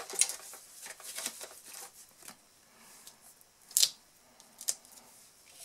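Faint rustling and crinkling of a sheet of Stampin' Up! Dimensionals (adhesive foam dots on a backing sheet) being handled, with a short sharp crackle about four seconds in and a smaller one just after.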